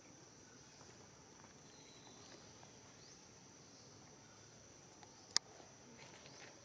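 Faint forest ambience with a steady, thin, high-pitched insect drone throughout. A single sharp click about five seconds in.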